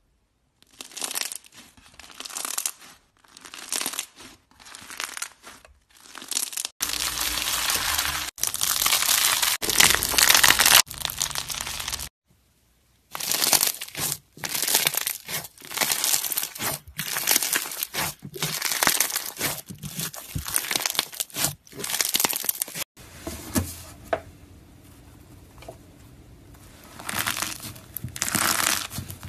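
Crunchy slime squeezed and poked by fingers: crisp crackling and popping in repeated short bursts as beads and small clay slices in the slime crunch, with a brief silent break about twelve seconds in.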